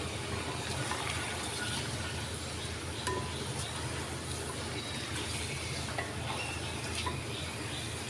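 Wooden spatula stirring chunks of parboiled beef and spice powder in a clay cooking pot, over a low steady sizzle of the meat frying in oil, with a few faint clicks of the spatula against the pot.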